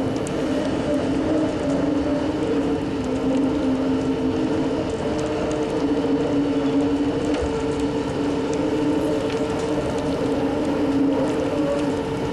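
Bucket wheel excavator at work in an open-pit lignite mine: a steady, loud machinery drone with two humming tones held throughout.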